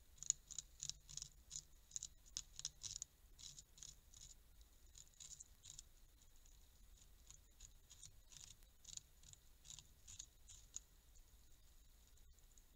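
Faint rasping strokes of a Eurasian beaver gnawing at wood with its incisors, a few strokes a second. They come in quick runs at the start and again later, with sparser strokes in between.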